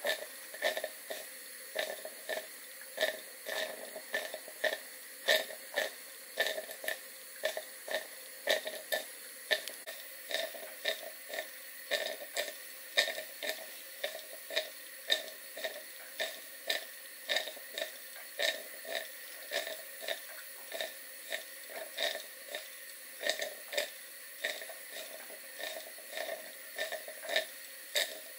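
Cotswold Heritage model beam steam engine running slowly on live steam, its exhaust chuffing through a chuff pot at just under two chuffs a second, slightly uneven.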